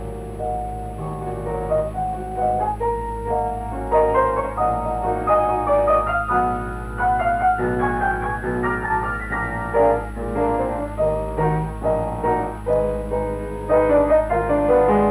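Background piano music, a quick, lively melody of many notes over a steady low hum.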